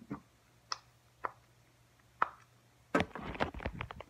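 Handling noise: four separate light clicks and knocks about half a second to a second apart, then, about three seconds in, a dense second-long run of rapid clattering clicks.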